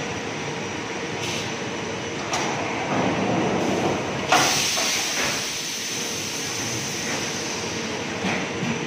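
High-frequency PVC welding machine running with a steady hum, with a loud sudden hiss about four seconds in that dies away over a second or so, and a few fainter clicks before and after.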